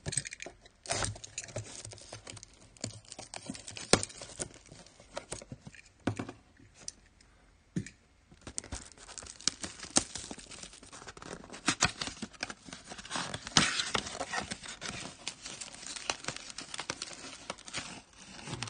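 Trading-card blaster box and its pack wrappers being torn open and handled: irregular tearing, crinkling and clicking, with a lull about a third of the way through and a busier stretch after it.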